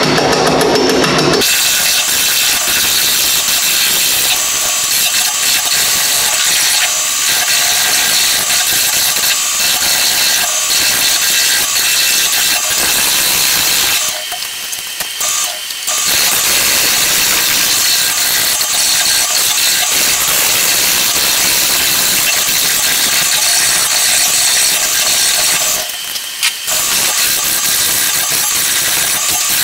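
Half-inch bowl gouge cutting a spinning, out-of-balance acrylic-resin and wood blank on a wood lathe at its lowest speed, a steady, mostly high-pitched scraping hiss as the blank is trimmed round to balance it. The cut breaks off briefly twice, about halfway through and near the end.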